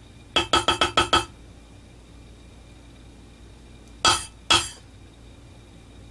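Plastic-headed mallet striking a metal pear shader stamp into leather: a quick run of about six taps, then two more strikes about half a second apart in the middle.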